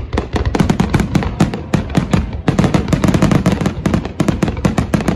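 Aerial fireworks display: a dense, rapid string of bangs and crackles from shells bursting overhead, many a second, with a short lull about halfway.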